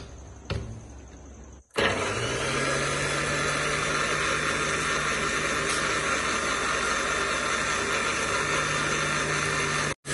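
Countertop electric blender switched on about two seconds in and running at a steady speed, grinding mint leaves with lemon juice, sugar and lemon-lime soda into a green puree.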